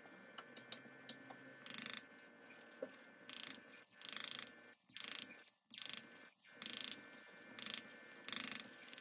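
Small handheld grinder being twisted back and forth to crush pressed eyeshadow into loose powder. It makes a run of short, faint grinding bursts, about one every two-thirds of a second.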